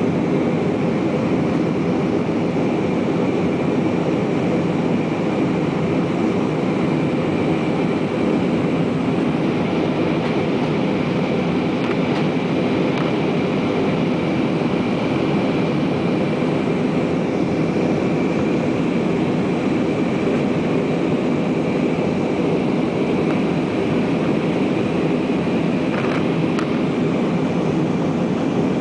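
Steady cabin noise of a twin-engine jet airliner climbing after take-off: the drone of the engines and airflow heard from inside the cabin, with a faint steady high whine over it.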